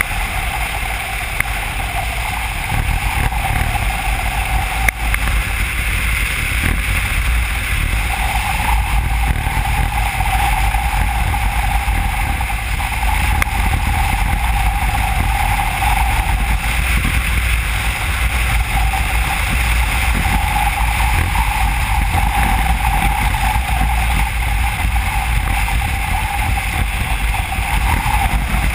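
Motorcycle cruising at steady road speed, heard through a camera mounted on the bike: constant wind rush on the microphone over the engine and tyre noise.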